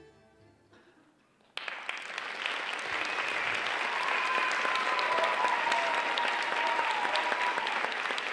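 Audience applause that starts suddenly about a second and a half in, as the last of the music dies away. A drawn-out high call from the crowd rises over the clapping in the middle.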